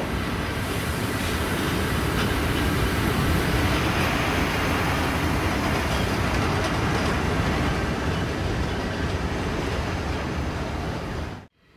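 SBB Ae 6/6 electric locomotive running past on the rails: a steady rumble of wheels and running gear that cuts off suddenly near the end.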